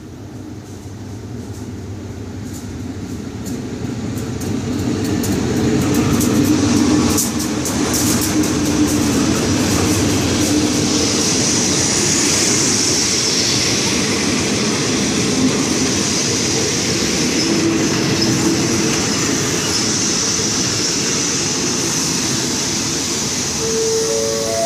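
Diesel-hauled passenger train (Thai locomotive GEA 4545) drawing into a station. Its rumble grows louder for the first several seconds as it approaches, with a run of wheel clicks. Then the carriages roll past, rumbling steadily, with a high hiss for a few seconds as the train slows.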